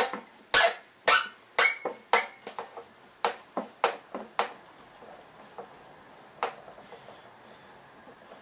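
Sharp, irregular clicks and knocks of hand work with a screwdriver on a backpack blower's plastic frame and its screws: about a dozen in the first four and a half seconds, one more a little later, then only faint room noise.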